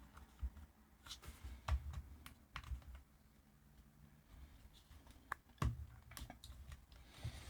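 Faint, irregular small clicks and taps of hands working on a plastic Bluetooth speaker casing and its small parts during reassembly.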